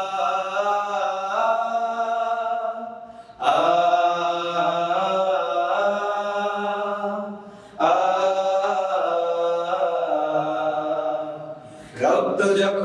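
Male vocal group singing a wordless a cappella interlude in long held notes. Three phrases swell and fade one after another, and a new, busier phrase begins near the end.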